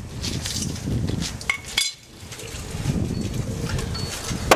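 Heavy truck brake shoes and their spring hardware being handled, metal clinking and clanking against the brake assembly, with a single sharp metallic clank near the end.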